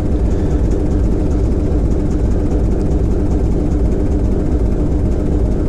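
TEM2UM shunting locomotive's diesel engine running steadily on the first throttle notch under load, driving the main generator during its post-repair break-in load test, heard from inside the cab.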